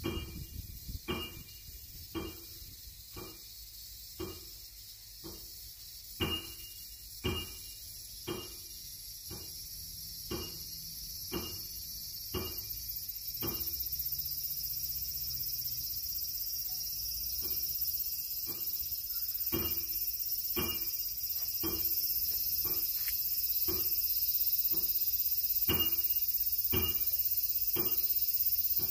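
A steady, high insect chorus from the trees, growing louder toward the end, with short sharp taps roughly once a second throughout.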